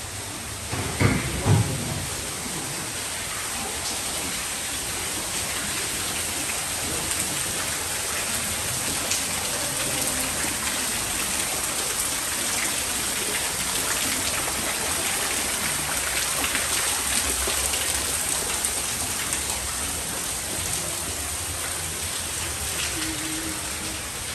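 Water falling like heavy rain onto foliage and rocks in a conservatory's planted garden, a steady hiss that swells after the first couple of seconds. Two short low thumps about a second in.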